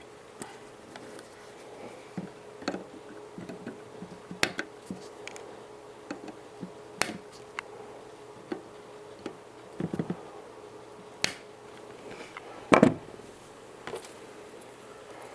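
Irregular small clicks and knocks of hands handling the TV's casing and parts, the loudest about 13 seconds in, over a faint steady hum.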